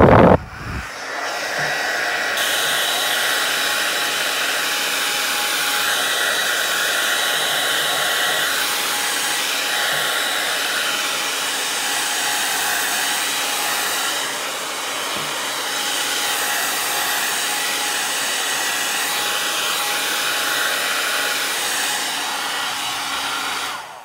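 Remington handheld hair dryer running on a steady rush of air with a faint motor whine, its sound swelling and easing slightly as it is moved over the paper. It opens with a brief loud low rumble and shuts off near the end.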